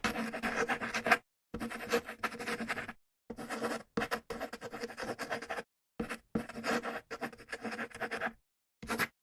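Writing on paper, a scratchy stroke sound, in several bursts of about half a second to two seconds, each cut off abruptly into dead silence.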